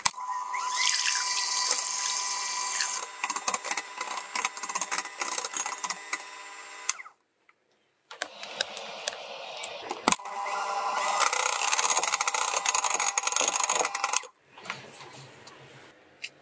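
Electric hand mixer whipping heavy cream in a glass bowl: a steady motor whine with many small clicks from the wire beaters. It runs in two stretches, cuts out for about a second midway, and falls to a faint sound near the end.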